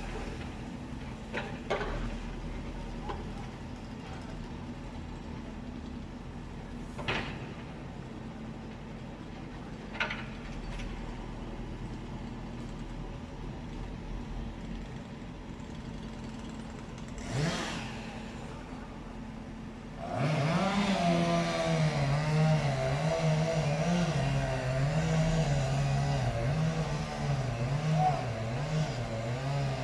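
A low engine hum with a few scattered knocks, then about two-thirds in a louder engine starts and keeps running, its pitch wavering up and down unevenly.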